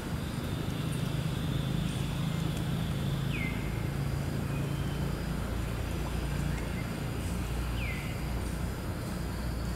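Steady low rumble of background noise, with two short whistled calls that fall in pitch, about four and a half seconds apart.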